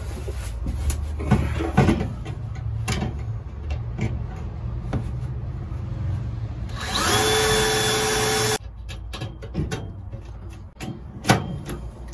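Cordless drill with a 3/16-inch bit drilling a rivet hole through aluminum angle: one run of about two seconds that winds up at the start, holds a steady whine and stops abruptly. Knocks and clicks from handling the tools and metal come before and after it.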